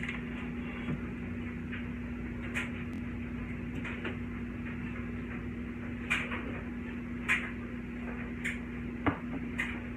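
Scattered household knocks and clicks over a steady low hum, with sharper knocks about six, seven and nine seconds in.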